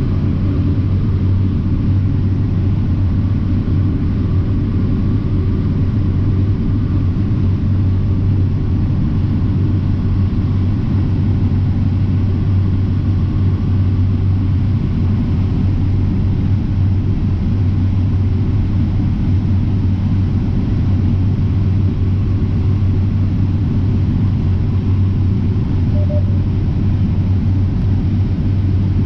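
John Deere X9 1000 combine running under load while harvesting corn: a steady, unchanging low drone with a strong hum in the bass.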